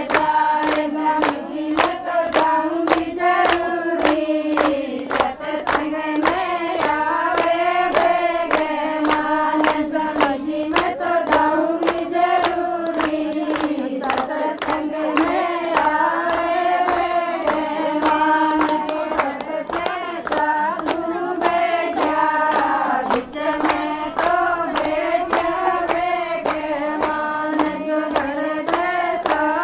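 A group of women singing together while clapping a steady beat, about two claps a second.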